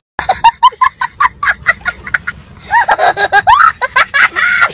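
A man laughing hard: a quick run of sharp cackles for about two seconds, then high, squealing whoops.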